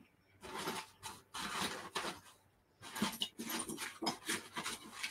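Rustling and scuffling in short broken bursts as someone rummages low down, handling things out of sight.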